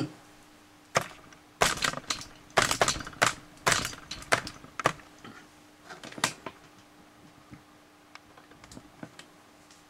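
An irregular string of sharp clicks and knocks, some in quick clusters, thinning out after about six seconds over a faint steady hum.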